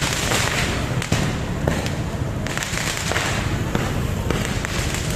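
Street fireworks going off: sharp bangs over a dense crackling hiss that comes in waves.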